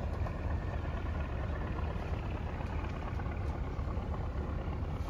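Houseboat engine running steadily with a low drone, heard from on board while cruising.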